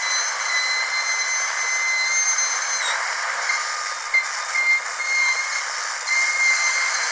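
Dental drill whining at a steady high pitch over a constant hiss. About four seconds in, the whine cuts in and out in short stretches, then holds steady again near the end.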